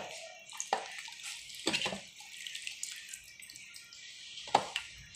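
A hand mixing chicken pieces into a wet yogurt, oil and masala marinade in a steel bowl: wet squelching and sloshing, with a few sharper knocks, one about a second in, two close together near two seconds and one near the end.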